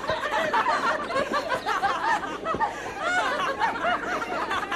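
A group of people laughing and chattering all at once, with many voices overlapping.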